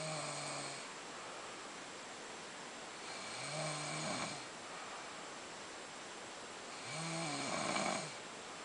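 A woman snoring in her sleep: three snores about three and a half seconds apart, each lasting about a second.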